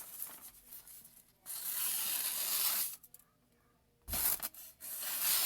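Freshly sharpened knife blade slicing through paper twice, each cut a dry hissing tear lasting about a second and a half; a low thump opens the second cut. The clean slices show a sharp edge.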